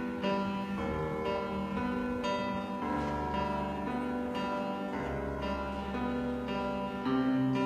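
Instrumental music with piano: sustained notes and chords that change every second or so.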